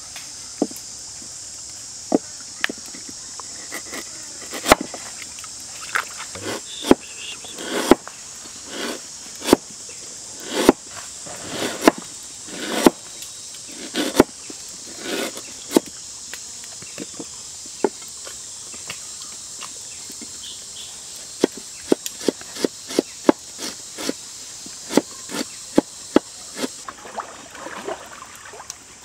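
Knife chopping on a wooden cutting board as galangal is sliced: irregular sharp strikes, spaced out at first, then a quicker run of cuts near the end. A steady high insect drone runs behind it and stops shortly before the end.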